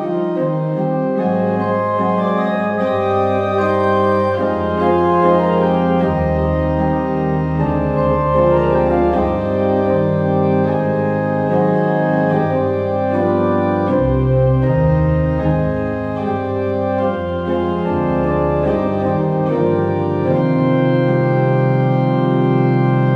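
Church organ playing slow, held chords over deep bass notes that change every second or two.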